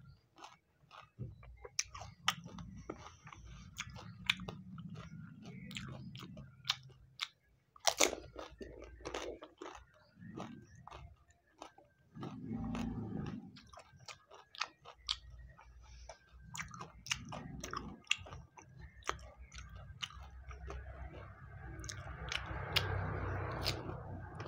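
A person chewing crisp pani puri shells with green chillies, close up: many sharp crunches over wet chewing. Near the end a longer breathy stretch, air blown out through pursed lips against the chilli heat.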